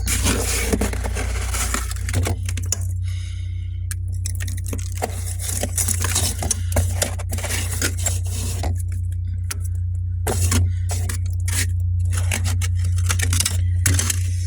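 Freezer frost being scraped and crunched, a run of irregular crackly scrapes and crunches over a steady low hum.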